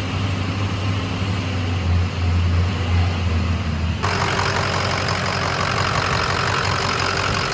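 Freshly rebuilt Ford Power Stroke diesel V8 idling steadily on its first run. About four seconds in, the sound changes suddenly: higher steady hums and a hiss join the low idle.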